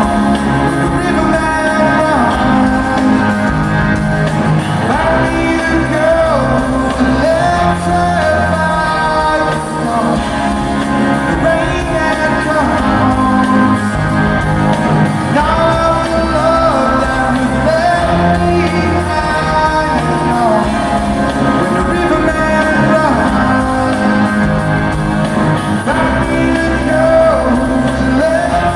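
Rock band playing live in a large arena: a slow song with a sung lead vocal over guitars, bass and drums, the chords changing every couple of seconds.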